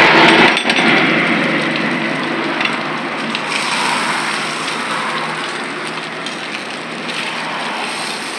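Eggs and burger patties sizzling on a hot flat-top griddle. The sizzle is loudest at first, as a freshly cracked egg hits the plate, then settles, and swells a little again about four seconds in as another egg goes into its ring. A sharp metal clink sounds about half a second in.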